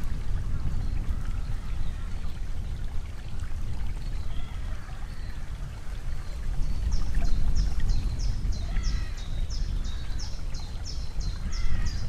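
Shallow stream trickling over gravel under a steady low rumble. From about seven seconds in, a small bird sings a quick series of short, high, repeated notes, about three a second.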